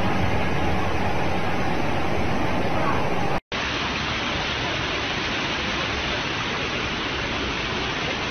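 Floodwater rushing, a steady, loud, even noise. It drops out for a split second about three and a half seconds in and comes back slightly quieter.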